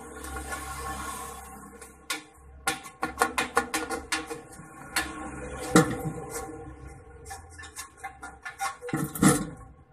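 Hand snips cutting through a paper template: quick runs of crisp snipping clicks as the blades close, starting about two seconds in.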